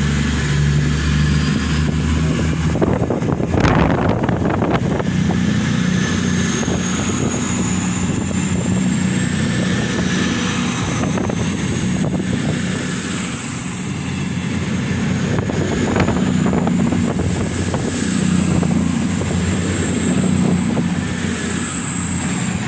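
CrossCountry Voyager diesel multiple unit pulling out: its underfloor diesel engines run with a steady low drone while a high whine climbs slowly in pitch as the train gathers speed. Two sharp knocks stand out, about four seconds in and again about sixteen seconds in.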